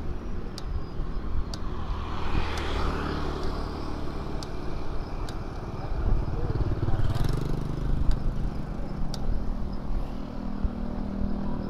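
Wind on the microphone and tyre rumble from a bicycle ridden on asphalt, with a motorcycle engine passing about six seconds in.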